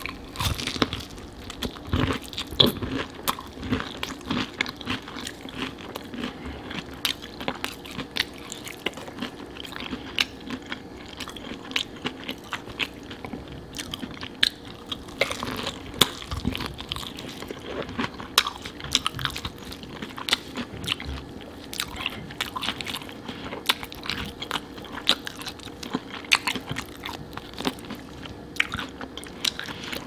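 Close-miked biting and chewing of crispy fried chicken drumsticks coated in a thick sauce: irregular crunches of the breading and wet chewing sounds.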